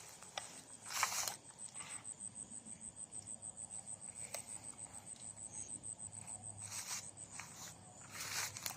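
A night-calling insect makes a high, steady pulsing trill, its pulses coming several times a second. Brief rustling or footstep noises come about a second in and again near the end.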